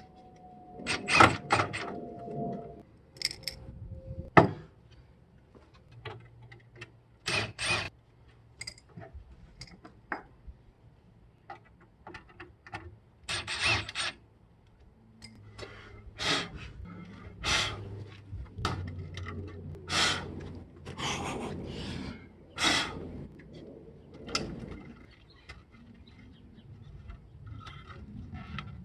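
Hands and hand tools working on a CRT television during teardown: irregular clicks, knocks and scraping, a few of them sharp and loud.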